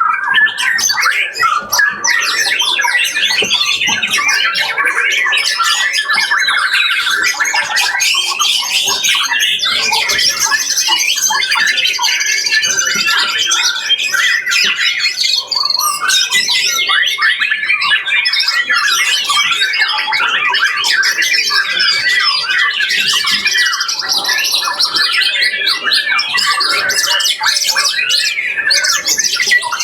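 Many caged songbirds singing at once in a bird-singing contest, a dense, continuous, loud mix of overlapping chattering trills and calls.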